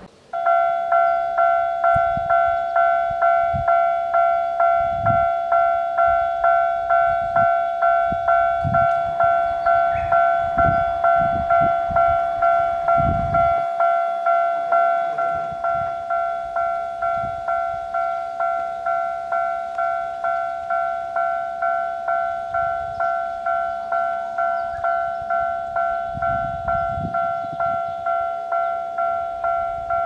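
Japanese level-crossing warning bell ringing its "kan-kan" alarm, the sign that a train is approaching. It starts suddenly just after the start and repeats steadily at about two strokes a second, each stroke a two-note tone, with faint low rumbles now and then underneath.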